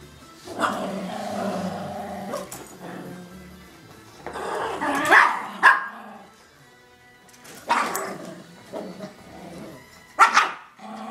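Yorkshire terrier puppies barking and growling in play, in four bursts about a second, five, eight and ten seconds in; the bursts around five and ten seconds are the loudest.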